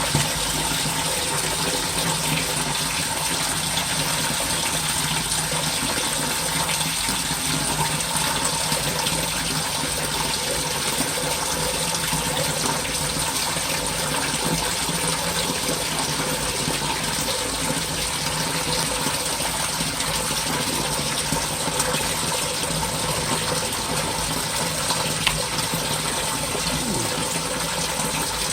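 Steady water flow in a French drain sump pit during rain, running without a break.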